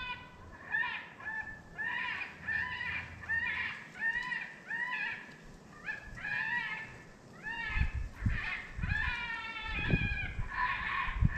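Electronic predator call playing a rapid series of squealing animal cries, about two a second, to lure coyotes in. A few low thumps come in near the end.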